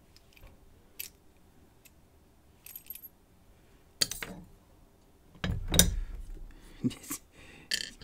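Small metal lock parts, a brass cylinder and a steel padlock body, clinking and clicking as they are handled during disassembly, with a heavier knock a little past the middle.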